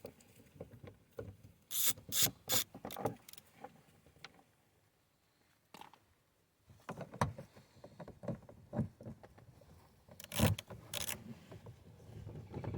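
Scattered, irregular clicks and knocks from hand tools and small bolts being handled and set down while a truck's door panel is taken apart.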